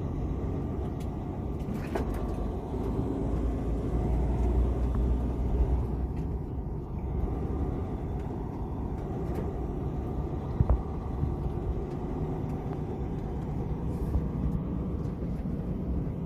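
Steady low engine and road rumble of a moving motor vehicle, with a couple of short sharp clicks about ten seconds in.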